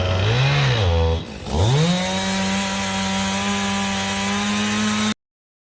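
A chainsaw engine runs at a steady speed, revs up and back down, and nearly dies away about a second in. It then climbs to a higher steady pitch and holds there until the sound cuts off abruptly near the end.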